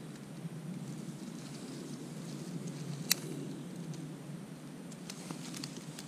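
A sharp click about three seconds in, and a few fainter clicks near the end, as a disposable lighter is struck to light a stick of dry bark, over a steady low outdoor rushing noise.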